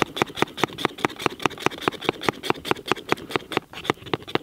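Hand-pumped stainless-steel plunger milk frother being worked fast through hot milk, a rapid even rhythm of clicking strokes at about six a second as the milk froths.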